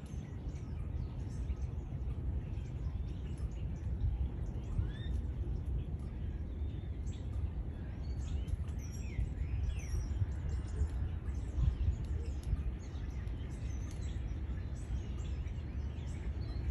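Birds chirping, with short rising and falling whistles thickest in the middle stretch, over a steady low rumble of outdoor background noise.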